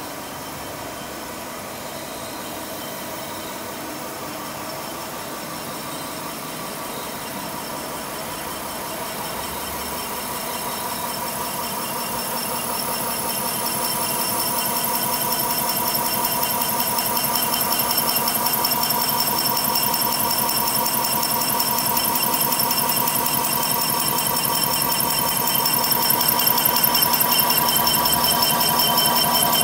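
JOYSUNG FDG4500 hydraulically driven circular milling machine facing a large steel flange: a steady mechanical running with a high whine and a fast fine chatter from the milling cutter cutting steel. It grows louder over the first half or so, then holds steady.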